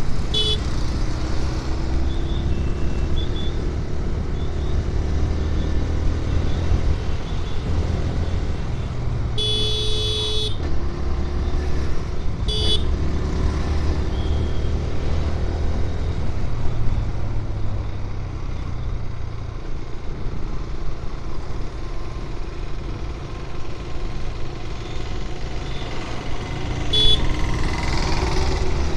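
Steady low rumble of wind and engine while riding a motorcycle on the road, broken by horn beeps: a short beep near the start, a longer honk about ten seconds in, another short beep about two seconds after it, and a short beep near the end.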